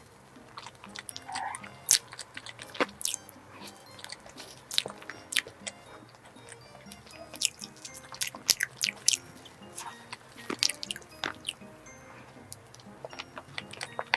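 Close-miked eating sounds of a strawberry cream dessert: soft chewing with frequent sharp mouth clicks and smacks, over quiet background music.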